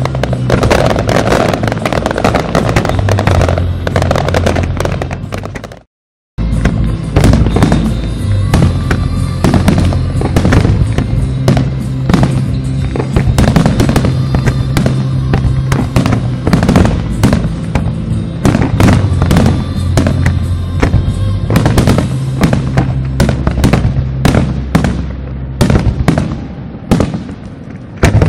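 Fireworks bursting and crackling in quick succession over loud music with held bass notes. The sound drops out completely for a moment about six seconds in.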